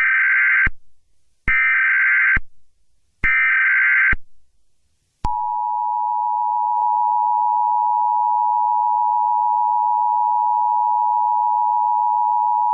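Emergency Alert System tones: three bursts of SAME header data, each just under a second with short gaps, then about a second later the steady two-tone EAS attention signal, which runs on past the end. Together they mark the start of an emergency alert activation.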